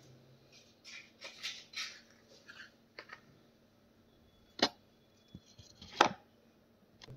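Soft scratchy rustles, then a few sharp clicks, the last and loudest about six seconds in.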